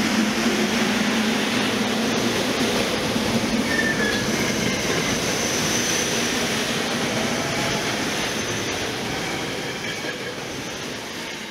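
SEPTA Regional Rail electric multiple-unit train pulling out of the station, its stainless-steel cars rolling past on the rails with a steady, loud rumble and brief faint squeals from the wheels. The sound fades over the last few seconds as the train draws away.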